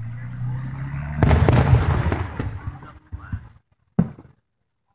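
Aerial fireworks shells bursting: a loud rumbling boom with a dense burst of crackle a little over a second in, fading by about three seconds, then another sharp bang about four seconds in.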